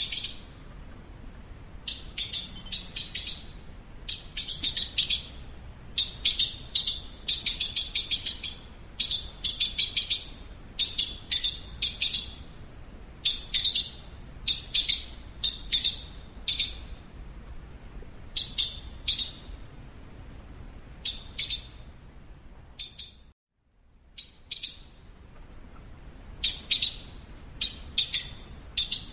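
Yellow-billed blue magpie calling: short, high notes in quick clusters of two to four, repeated about every second. The sound drops out briefly a little past two-thirds of the way through.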